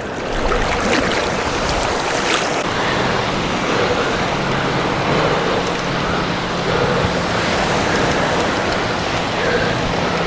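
Ocean surf washing onto the beach with wind buffeting the microphone, a steady rushing noise. A few sharp clicks come in the first couple of seconds, and a faint low steady hum joins about three seconds in.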